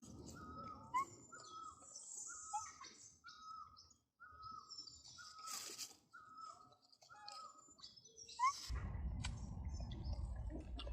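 A bird calling outdoors, repeating one short, slightly falling note about once every second, with other higher chirps around it. Near the end a low rumbling noise comes in under the calls.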